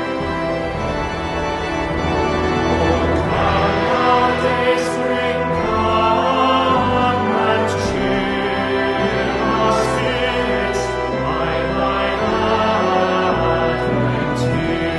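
Slow organ music of sustained chords.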